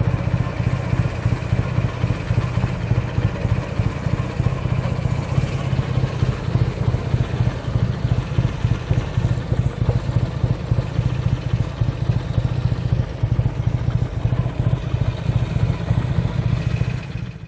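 A BSA A65 motorcycle's 650 cc parallel-twin engine running at low revs as the bike rolls slowly, a steady low rapid pulsing that fades out at the very end.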